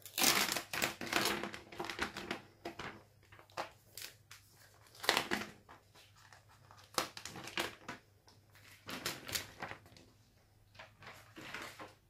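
Clear plastic packaging crinkling and rustling in irregular bursts as a tablet is slid out of its wrapping, loudest in the first two seconds.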